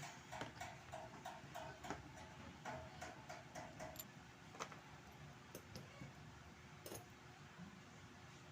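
Seiko 7002 diver's watch movement ticking faintly, a rapid, even tick for about the first half, then a few scattered clicks, one sharper near the end.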